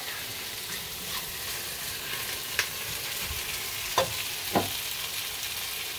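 Beef and onions sizzling steadily as they fry in a stovetop pot, with a few sharp knocks in the second half.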